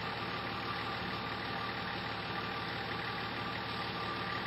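A 4WD's engine idling steadily, heard from inside the cab.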